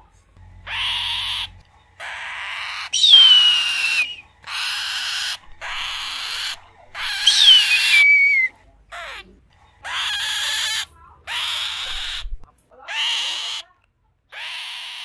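Eagle calling: a series of about eleven raspy screams, roughly one every second and a half, some carrying a clear whistle that falls in pitch.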